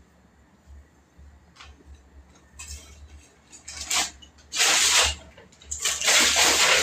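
A plastic carrier bag rustling and crinkling as it is handled, in several bursts starting about two and a half seconds in, the loudest in the last two seconds.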